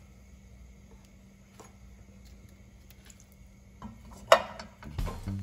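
Steel kitchen tongs clinking sharply once against a pan about four seconds in, while a piece of chicken is set into the pan; before that only a faint steady hum. Background music with drums comes in near the end.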